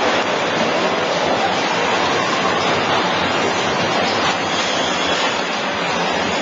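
TBS butcher's bandsaw running while cutting meat on a production line: a loud, steady, even noise.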